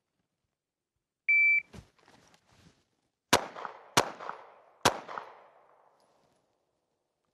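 A Pact shot timer gives one short start beep, a few faint clicks follow as the pistol is drawn, and then three pistol shots ring out: two about two-thirds of a second apart, the third just under a second later. The shots fall about 2.05, 2.69 and 3.58 seconds after the beep: a failure drill from the draw, two to the body and one to the head, timed by the shot timer.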